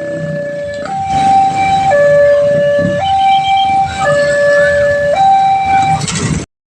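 Railway level-crossing warning siren sounding a two-tone alarm, alternating between a lower and a higher note about once a second, over a low rumble. It cuts off suddenly near the end.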